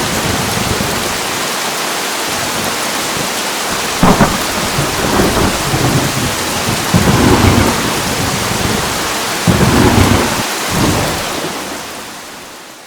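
Heavy rain falling steadily, with thunder cracking and rumbling in several peals from about four seconds in, the last around ten seconds in; the storm sound then fades out near the end.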